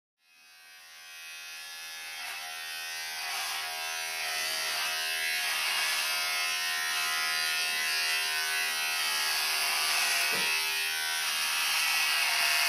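Electric hair trimmer buzzing steadily as it shaves body hair off the belly. It fades in over the first few seconds.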